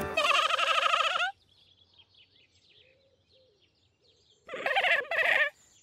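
Cartoon lamb bleating: one wavering bleat at the start, then two short bleats near the end, with faint birdsong chirping in between.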